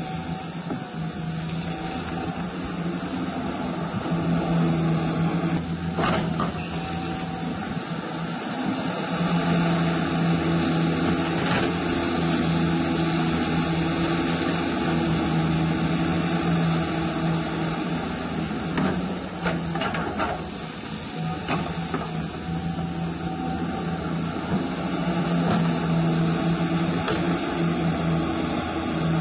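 Hydraulic pump of a radio-controlled CAT 336 model excavator running with a steady whine that grows louder and eases as the boom, arm and bucket work and the upper body swings. There are a few short knocks.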